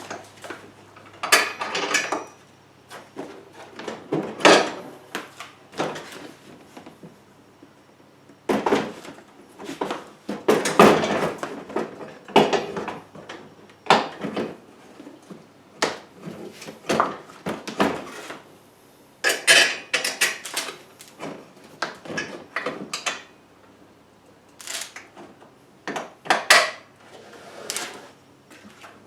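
Irregular knocks, clunks and scraping from handling the rear bagger's hopper top as it is taken off, turned around and refitted.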